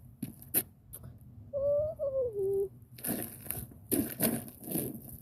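Crunching and crackling on ice-crusted ground, growing louder and denser near the end, with a brief pitched vocal sound sliding down in pitch midway.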